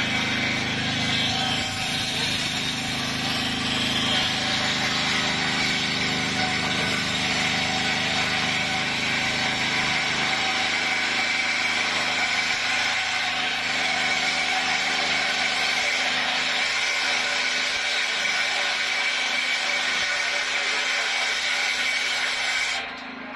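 Belt-driven circular sawmill blade, powered by a small gasoline engine, running steadily under load as it rips a log lengthwise into boards. The blade wobbles, not centred on its shaft.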